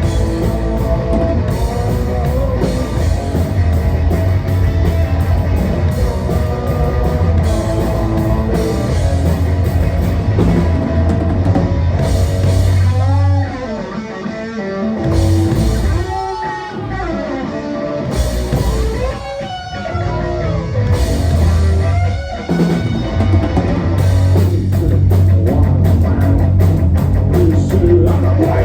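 Live rock band playing an instrumental passage: electric guitar, bass guitar and drum kit. About halfway in the bass and drums drop out for roughly ten seconds while a guitar plays wavering, bending notes alone, then the full band comes back in.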